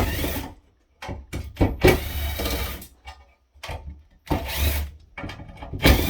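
Power drill backing out screws in about four short runs, its motor whine rising and falling in pitch, with brief pauses between the runs.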